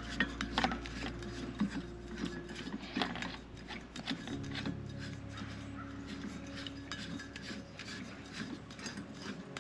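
A 1 lb propane cylinder being screwed into the heater's regulator fitting by hand: repeated short scraping and clicking of the threads and the bottle rubbing against the unit. Faint background music with low held notes plays underneath.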